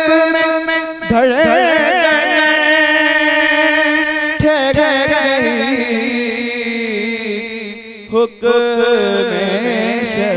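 A solo male voice sings a devotional Urdu manqabat in praise of Imam Hussain, unaccompanied. It holds long, wavering, ornamented notes in place of words, with a short break for breath about eight seconds in.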